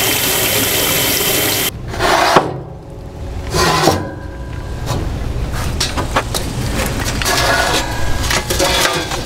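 A tap runs over hands at a steel sink for under two seconds. Then a metal charcoal chimney starter scrapes on a steel firebox grate as it is tipped and lit coals pour out, with irregular clinks and rattles.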